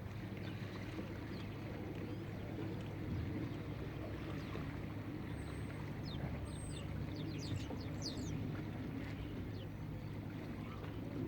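Steady low rumble of water and boats in a harbour, with a few brief high bird chirps in the middle.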